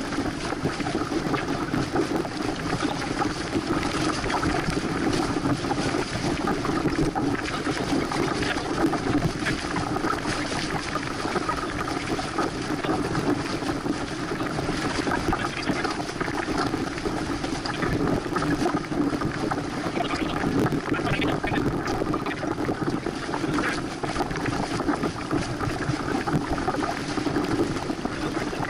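Water rushing along the hull of a Santana 525 sailboat under sail, with wind on the microphone; a steady, unbroken rush.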